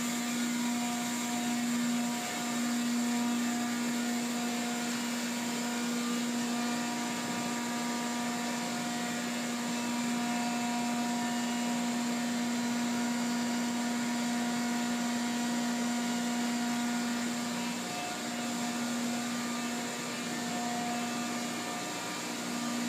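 Steady drone of oil platform machinery in a process area: a constant low hum with fainter higher tones over an even rushing hiss, unchanging throughout.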